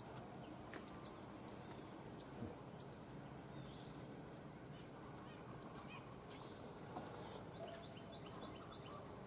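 Birds chirping faintly in short, high, repeated calls over a steady background hiss.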